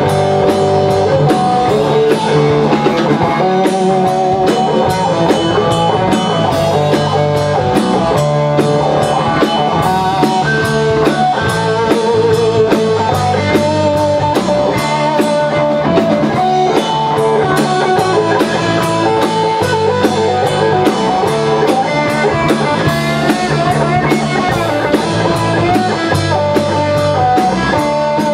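Live rock band playing an instrumental break in a blues-rock song: electric guitars and a drum kit keeping a steady beat, with a lead line of held, wavering notes.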